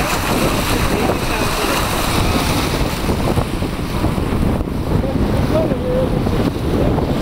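Wind buffeting the microphone aboard a sailboat under sail, over the steady rush of water past the hull.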